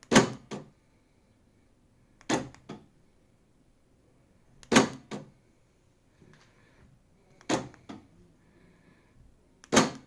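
Aftermarket electric door lock actuator on a bare C3 Corvette door, worked by a key-fob remote: five sharp double clacks, about every two and a half seconds, as the actuator throws the latch rod.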